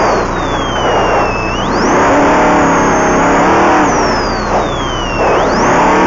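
Off-road race truck's engine heard from inside the cab. The revs drop off and then climb again twice, with a high whine that falls and rises along with them.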